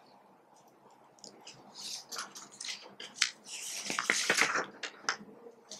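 Sheets of paper being handled and flipped over, a run of crinkling and rustling with small clicks, loudest from about three to four and a half seconds in.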